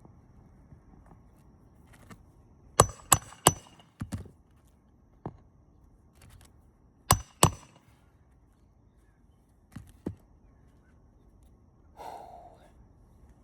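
Hammer driving roofing nails into a composition shingle: three sharp strikes in quick succession, a few softer taps, then two more sharp strikes.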